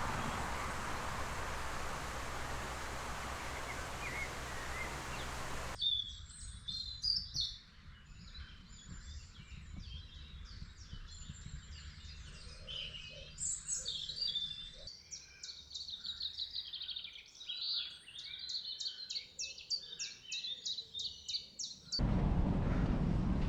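A steady rushing noise for the first few seconds, then it cuts away to several small birds singing: varied chirps and warbles, with a fast repeated trill of about five notes a second near the end.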